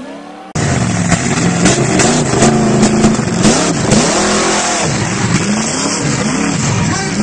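Monster truck engine revving up and down again and again, loud and starting abruptly about half a second in, with several sharp knocks in the first few seconds.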